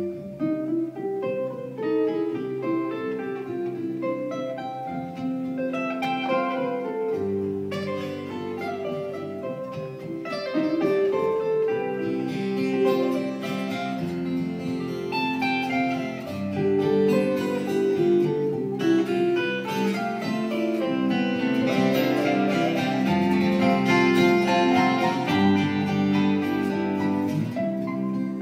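Hawaiian slack-key acoustic guitars played together live, several guitars picking melody and chords at once. The playing grows fuller and louder in the second half.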